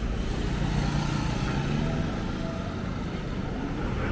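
Street traffic: a steady low rumble of passing motor vehicles.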